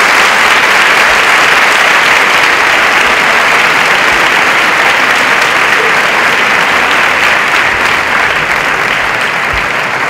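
Audience applauding: a large crowd clapping in a long, loud round that eases off toward the end.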